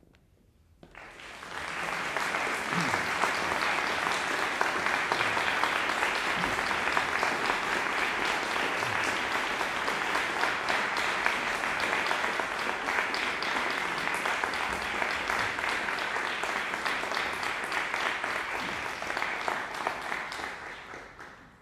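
Audience applauding, swelling in about a second in and dying away near the end.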